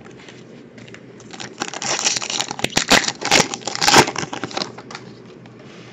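Foil trading-card pack wrapper being torn open and crinkled by hand. A crackling run of crinkles starts about a second and a half in, is loudest around the middle, and dies away about a second before the end.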